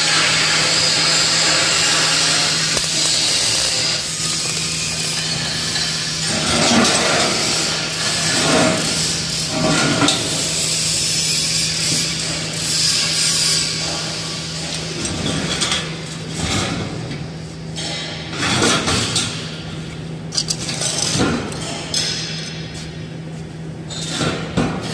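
Workshop noise with a steady hum and hiss. From about six seconds in come irregular knocks and clanks of square steel tubing being handled on a welded frame.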